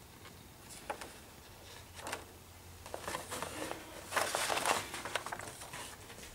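Paper rustling and crinkling as the pages of a plastic model kit's instruction booklet are turned and handled. There are short rustles about one and two seconds in, then a longer, louder stretch of rustling around the middle.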